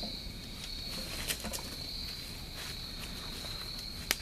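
Insects chirring in a steady high-pitched drone, with a few sharp snaps over it: one about a second in and a louder one near the end.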